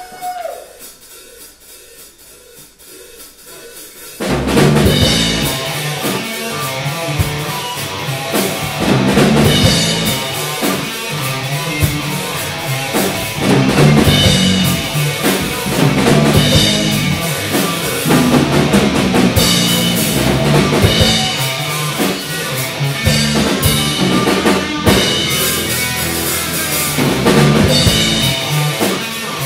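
A live rock band with drum kit and electric guitars starts playing suddenly about four seconds in, then plays loudly with a steady beat.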